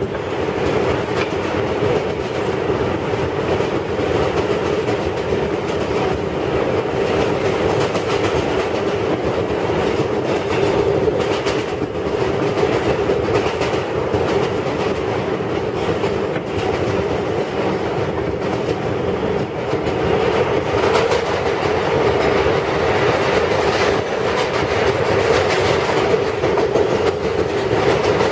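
Kawasaki R142A subway car running steadily, heard from inside the car: a continuous rumble of wheels on rail with scattered clicks.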